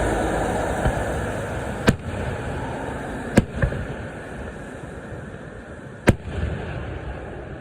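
Fireworks bursting: four sharp bangs, two of them close together about three and a half seconds in, over a steady rumble that slowly fades.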